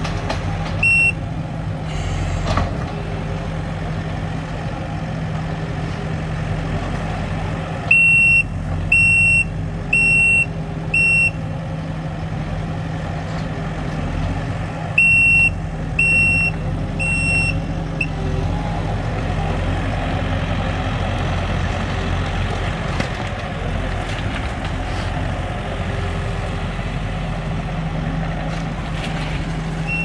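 Kubota SVL65-2 compact track loader's diesel engine running steadily while it works, with its backup alarm beeping in short runs as it reverses: once about a second in, four beeps at about one a second roughly a third of the way through, and three more around the middle.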